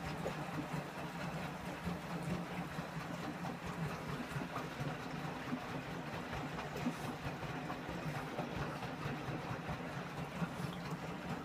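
Candy Aquamatic 2 compact washing machine running its descaling Cotton 95 wash with an empty drum: a steady motor hum as the drum tumbles through the wash water.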